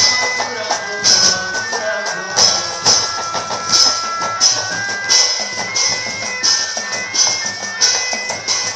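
Obrog percussion music: drums and jingling percussion with a sharp high clash about once a second, under a held melody line that steps from note to note.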